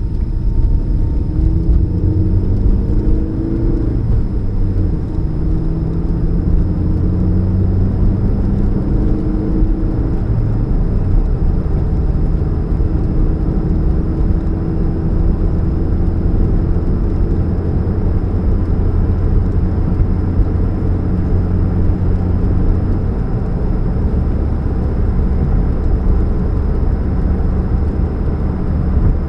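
2013 Chevrolet Spark's 1.2-litre four-cylinder engine and road noise while driving, a steady low hum and rumble with the engine note slowly rising and falling. The hum is the one the owner puts down to a leak at the catalytic converter.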